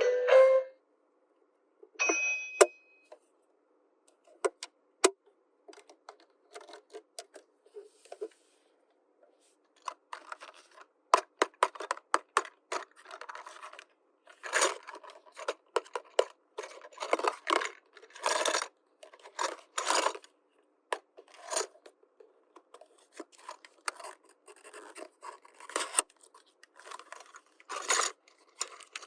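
Small plastic toy pieces clicking and clattering as they are handled, with short rustles of packaging. A brief chime rings about two seconds in.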